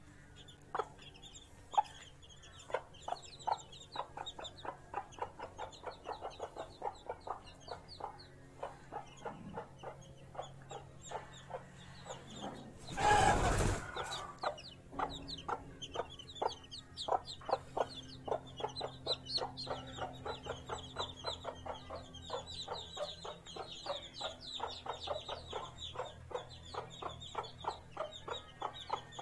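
Mother hen clucking in a steady run of short clucks while her newly hatched chicks peep continuously in high, quick falling notes. About thirteen seconds in, a loud burst of noise lasting about a second covers them.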